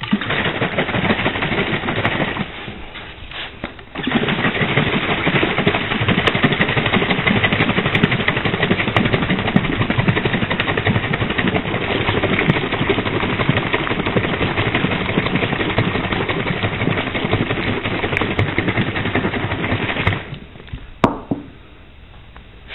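Large glass jar of muddy water being shaken hard to mix in flocculant: a continuous rapid sloshing rattle, with a short lull about two seconds in, stopping about twenty seconds in. A single knock follows as the jar is set down.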